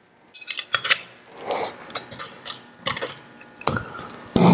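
Metal parts of a Model T starter being fitted together by hand: the end plate and armature set into the field-coil housing, with irregular clicks, clinks and short scraping rubs of metal on metal.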